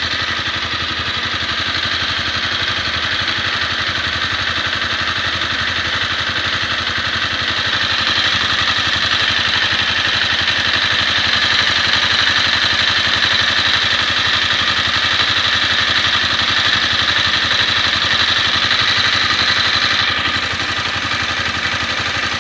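Honda CBR250R single-cylinder engine idling warm with a fast mechanical ticking rattle. It runs a little louder and brighter from about 8 seconds in, dropping back near the end; the owner puts the noise down to the valve shims or the cam chain tensioner.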